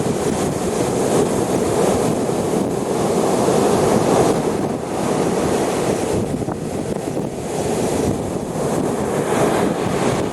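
Waves breaking and washing up the shore in slow surges, swelling about four seconds in and again near the end, with wind buffeting the microphone.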